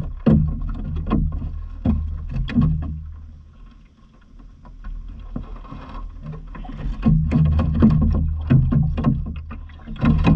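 A cast net and its wet rope being hauled in by hand over the side of a small aluminium boat, with water splashing and dripping and rope slapping, over a low rumble. The noises come in two busy spells with a quieter pause in the middle.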